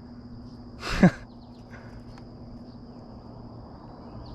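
A short, loud grunt-like breath from a person, falling in pitch, about a second in, over a steady high insect drone.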